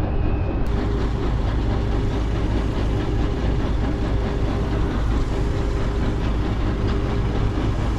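Heavy pumping machinery running constantly while pumping out a pump station: a steady, deep engine drone.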